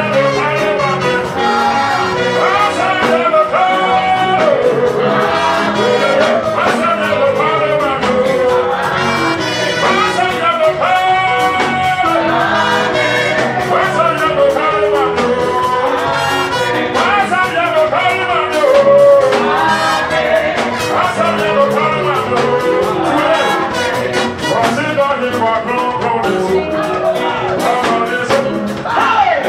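Loud, continuous live Pentecostal praise music: a lead singer on a microphone over band accompaniment, amplified through the hall's loudspeakers.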